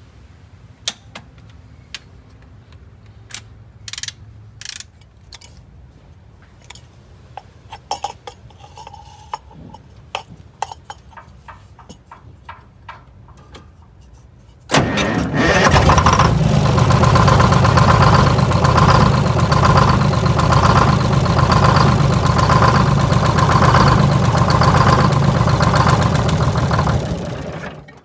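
Scattered clicks and knocks of hand tools, among them a torque wrench on the injector clamps. About halfway through, a Detroit Diesel 6-71 two-stroke inline-six diesel comes in suddenly and loud and runs steadily for about thirteen seconds with a compression gauge fitted in one injector hole for a compression test, then dies away just before the end.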